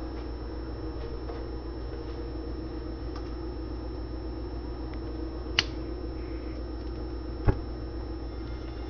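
Steady low background hum, broken by two sharp clicks: one about five and a half seconds in and a louder one about two seconds later.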